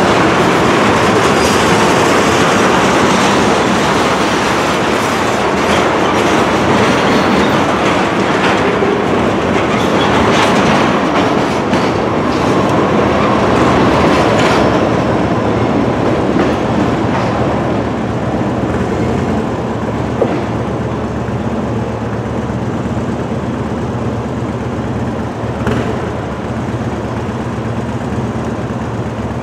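Freight train of tank cars rolling past, wheels clicking over the rail joints; after about halfway the sound thins out and eases a little as the last cars pull away.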